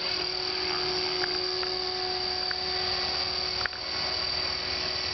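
Electric RC helicopter (T-Rex 500 ESP) hovering: a steady whine from its electric motor and main rotor, with a click and a slight dip in level about three and a half seconds in.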